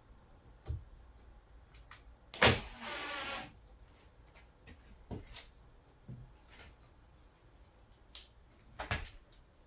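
Scattered knocks and clicks of work on a wooden door frame, with a sharp knock about two and a half seconds in followed by a short run of a cordless drill for about a second.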